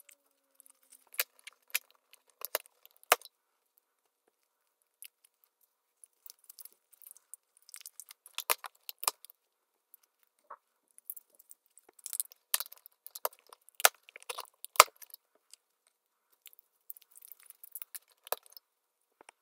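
Sharp plastic clicks and crinkling foil as foil-wrapped plastic watercolour full pans are unwrapped and set into the slots of a wooden paint box, coming in irregular clusters with quiet gaps between.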